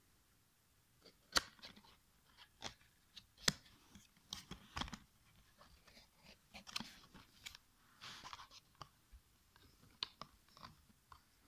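Cardboard perfume box being opened by hand: scattered faint clicks, taps and crinkling as the lid and inner packing are handled, with a few sharper clicks in the first five seconds and a short rustle later.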